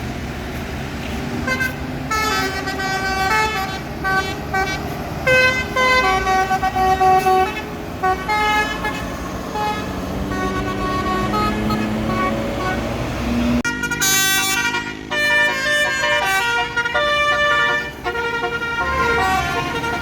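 Basuri multi-tone bus horn playing a fast melody of short changing notes over the noise of bus traffic. Midway a low engine note rises steadily as a bus pulls away, then after an abrupt change another basuri horn melody plays.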